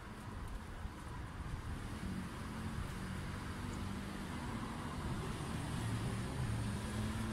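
Street traffic: a motor vehicle's low, steady rumble, growing gradually louder as it approaches.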